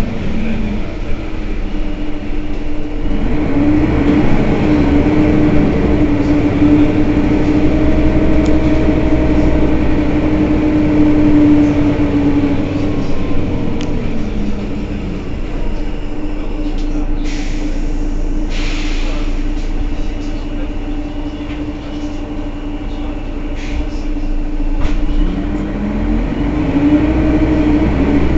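Mercedes-Benz Citaro city bus running at a standstill: engine rumble with a steady whine that climbs in pitch a few seconds in, drops back about halfway through, and climbs again near the end. Two short hisses come a little past halfway.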